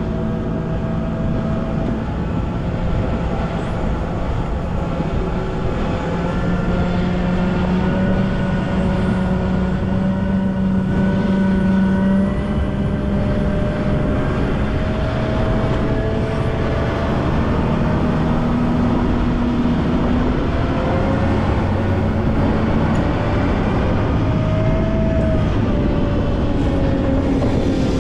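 Volvo L90F wheel loader's diesel engine running steadily at work, its pitch drifting up and down a little as the revs change.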